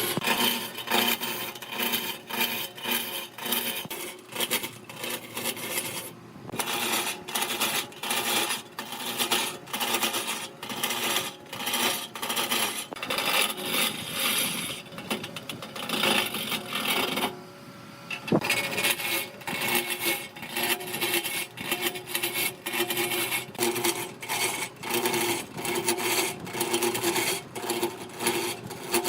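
Woodturning on a lathe: a cutting tool scraping and chattering against the spinning wood, making a dense, irregular rasping clatter. It breaks off briefly about seventeen seconds in.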